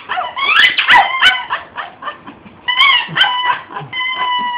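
A squeaky dog toy squeaking over and over as a shih-tzu bites and chews it, with quick bursts of short squeaks and sharp clicks, then a longer steady squeak near the end.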